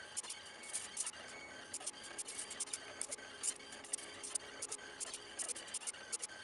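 Pen plotter drawing with a servo-held brush pen: the pen scratches on paper with rapid, irregular clicks as the servo raises and presses it to vary the line width. Underneath is a faint steady whine of the stepper motors, with a lower hum joining in for a few seconds in the middle.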